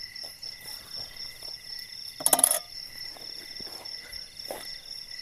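Night insects, crickets among them, chirping steadily in several high pulsing tones. Small handling rustles come and go, and a short, loud crackling rustle about two seconds in comes from the man handling the tent.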